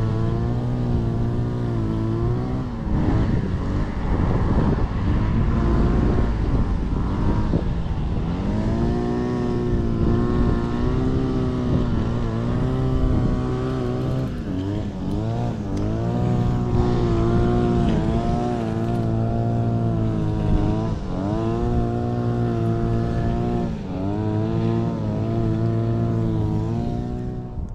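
Two petrol string trimmers cutting grass, their engines running loud, the pitch dipping and rising again and again as they work.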